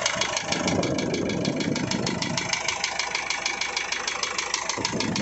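Isuzu 4JH1 four-cylinder diesel engine idling with a rapid, regular knock that seems to come from the second or third cylinder. The mechanic takes it for bottom-end damage in the crankshaft or crank pin after the engine ran short of oil, calling for an overhaul.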